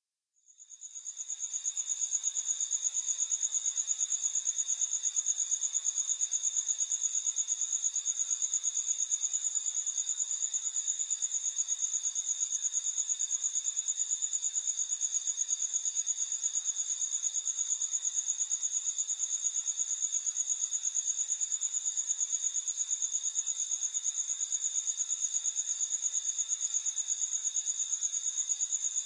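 Crickets chirring: a high, fast-pulsing trill that fades in over the first second or two and then holds steady.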